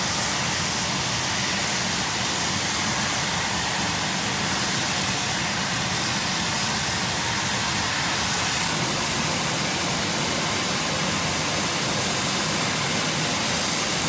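Natural gas rushing out of a main gas line burst by an excavator, a loud, unbroken hiss that does not change.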